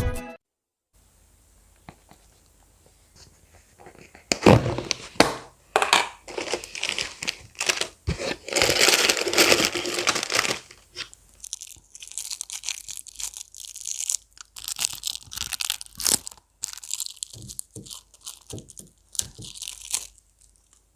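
Plastic cookie packaging being torn open and crinkled: irregular bursts of rustling and crackling start about four seconds in, with the loudest stretch near the middle and lighter, higher rustling after it.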